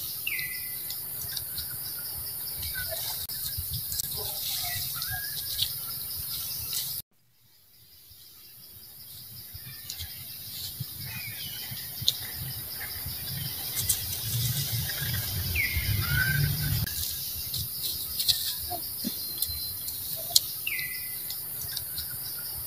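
Forest ambience: a bird repeating a short falling call three times over a steady high insect hiss. About seven seconds in the sound cuts out abruptly and fades back up.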